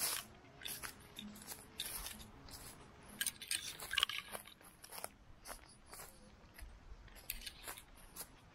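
Dry fallen leaves and dry grass crunching and crackling, in irregular crisp crackles about one or two a second.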